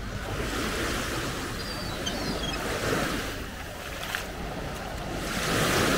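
Small waves of the Baltic Sea washing onto a sandy beach, the surf swelling and fading, loudest near the end.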